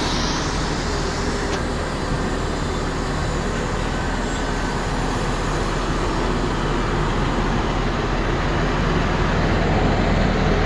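Engine of an open-top double-decker sightseeing bus running close by, a steady low hum over street traffic noise, swelling a little near the end.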